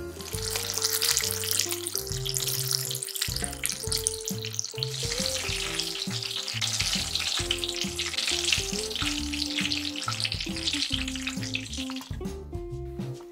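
Pieces of flour-coated mackerel deep-frying in hot oil: a steady crackling sizzle that stops about twelve seconds in. Light guitar background music plays throughout.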